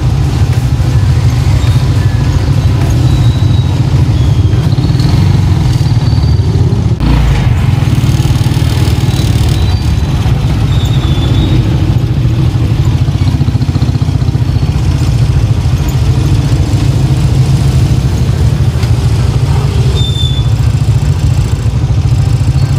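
Steady low engine and road rumble of a moving vehicle, with a few short high chirps.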